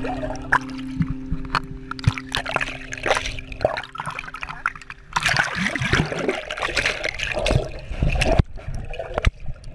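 Sea water splashing, sloshing and gurgling around a camera as it moves between underwater and the surface, with scattered clicks and bubbling. The splashing is loudest about halfway through.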